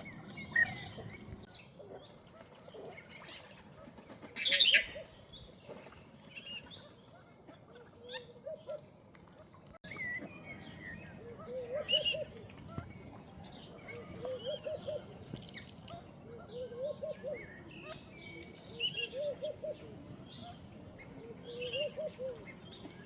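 Ducks dabbling and feeding at the water's surface: short wet splashing bill strokes, the loudest about four and a half seconds in, with a run of soft, repeated low calls and a few higher chirps.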